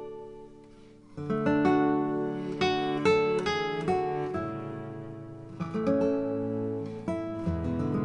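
Background music: acoustic guitar playing plucked and strummed notes, with a brief lull about a second in before the playing picks up again.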